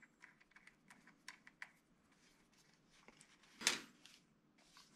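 Faint small clicks and ticks of a threaded nozzle adapter being screwed onto a portable tire compressor's air hose by hand, with one louder knock a little after three and a half seconds in.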